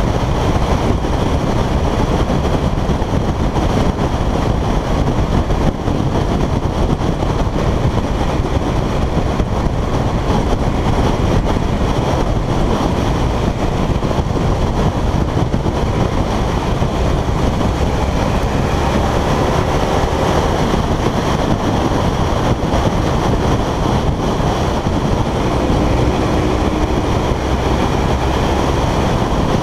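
Loud wind noise on a motorcycle-mounted camera at road speed, with the motorcycle's engine running underneath; the engine note climbs twice in the second half as it accelerates.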